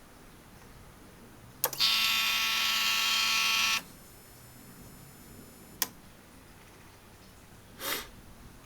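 Harley-Davidson fuel pump starting with a click and running for about two seconds with a loud buzzing whine, then cutting off abruptly; this is the pump's abnormal noise. A second sharp click follows a couple of seconds later, and a short brief noise comes near the end.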